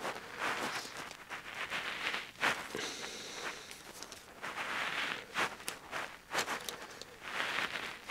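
Quiet handling noise: light clicks and rustles as a covered balsa control surface is fitted onto its hinges in the stabiliser's slots, with a few soft hisses spread through.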